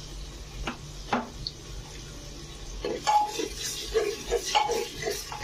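Steel spoon stirring and scraping spice masala in an aluminium pressure cooker: two sharp clicks about a second in, then from about three seconds a run of metallic clinks and scrapes against the pot.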